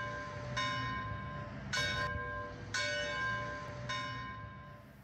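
Church bell tolling, struck four times at roughly one stroke a second, each stroke ringing on and dying away. The ringing fades out near the end.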